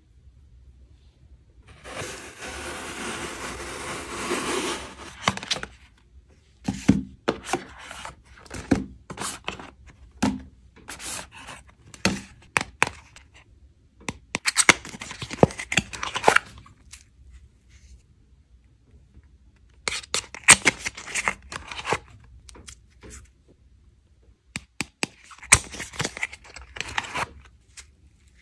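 Makeup packaging handled close to the microphone: cardboard boxes and a compact case are rubbed, scraped and tapped, with sharp clicks. There are several stretches of scratchy rustling, the longest a few seconds in.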